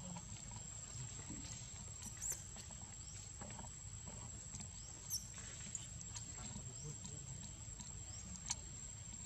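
Faint outdoor ambience: a steady high-pitched whine under a low rumble, with a few short, high chirps or squeaks about two, five and eight and a half seconds in.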